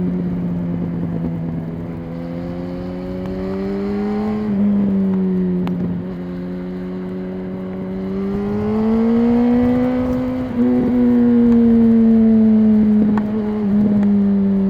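Yamaha R1's inline-four engine pulling steadily on the move, heard from a microphone in the rider's backpack; its note sinks and climbs slowly over several seconds, with short sharp breaks in the note about four and a half and ten and a half seconds in.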